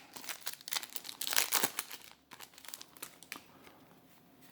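Crinkling of a foil trading-card booster pack wrapper being handled, a dense run of rustles in the first two seconds, then a few scattered rustles as it dies down.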